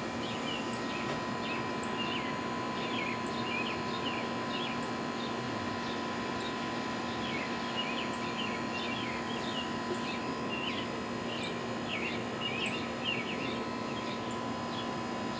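Small birds chirping over and over in short notes, over a steady background hum.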